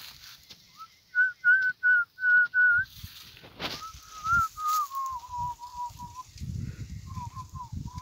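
A person whistling a tune close by: a row of five short, even notes, then one long held note that steps down in pitch, then a quick run of short notes near the end.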